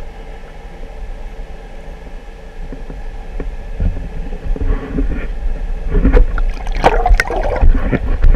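Water splashing and sloshing over a low, steady rumble with a faint steady whine; the splashing starts about halfway through and is loudest near the end.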